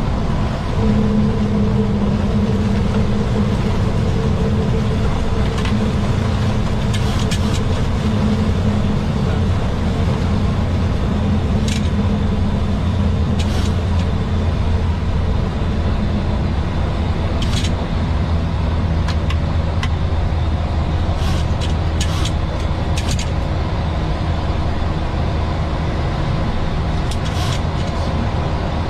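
Steady cockpit noise of a Boeing 737 climbing after takeoff: a continuous rush of engine and airflow noise over a low hum. A steady tone fades out about halfway through, and a few short sharp ticks come at irregular moments.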